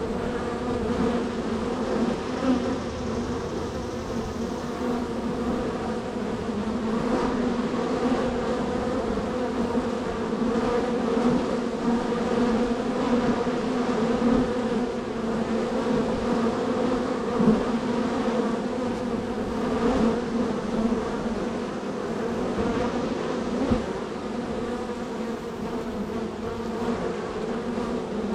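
Honey bees at a busy hive entrance, buzzing in a dense, steady hum as many bees fly in and out, with brief louder passes from single bees flying close.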